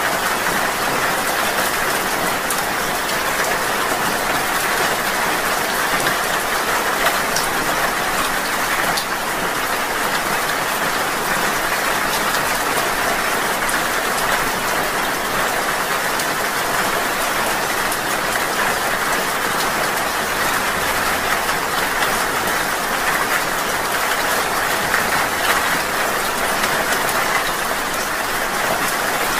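Steady rain falling in a dense, even hiss, with scattered single drops ticking through it.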